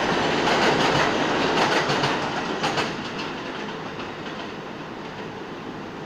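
Subway train wheels rumbling and clacking over rail joints, loud for the first three seconds and then dropping away to a quieter steady rumble.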